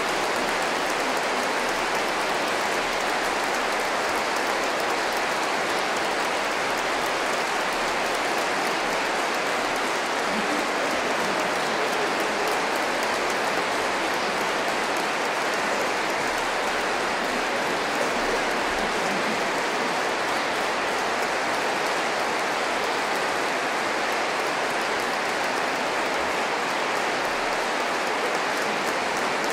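Audience applauding: dense, steady clapping that holds an even level throughout.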